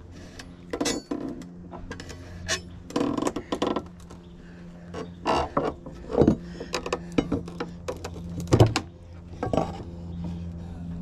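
Pry bar working at old wooden deck framing: irregular knocks, creaks and scrapes of metal on wood, over a steady low hum.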